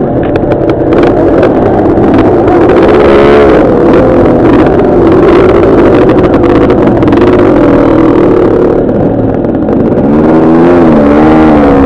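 Dirt bike engines running loud, revving up and down several times as the bikes pull away over rough ground.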